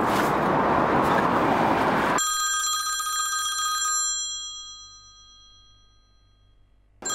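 A loud rushing noise cuts off abruptly about two seconds in, giving way to a single bright bell-like ring that dies away over about four seconds. A second, short ring of the same tone comes near the end.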